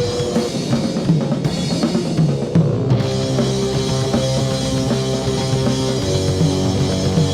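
Rock band playing an instrumental passage without vocals: a drum kit with bass drum and snare under held bass and guitar notes. About three seconds in, cymbals come in and the full band fills out.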